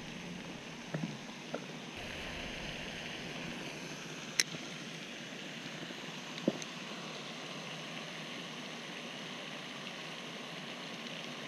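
Steady hiss of a pond's spray fountain, with a few light clicks from a spinning reel being handled; the sharpest click comes about four seconds in.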